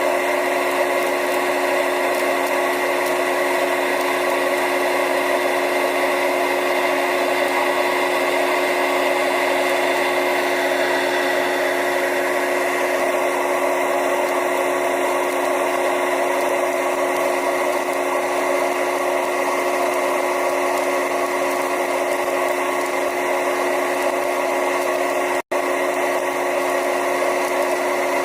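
Electric motor running with a steady hum and whine, the noise the title puts down to loose stator plates. It breaks off for an instant about three-quarters of the way through, then carries on unchanged.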